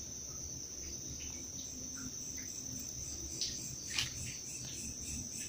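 Crickets trilling steadily in one unbroken high-pitched note, over a low background rumble. Two brief sharp clicks a little past the middle.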